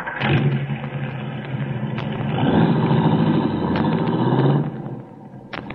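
Sound effect of a motor vehicle's engine running. It gets louder about halfway through, then drops away sharply near the end.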